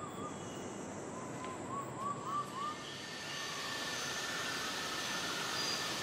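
Steady hiss of misty rainforest ambience, with a bird's faint quick run of about five short whistled notes, each rising and falling, about two seconds in. The hiss swells a little from about halfway.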